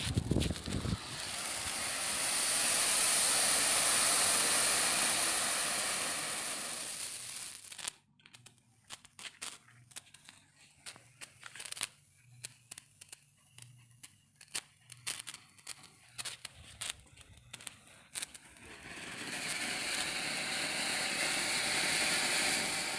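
Firework hissing as it sprays sparks for about seven seconds, then scattered pops and crackles, then hissing again near the end.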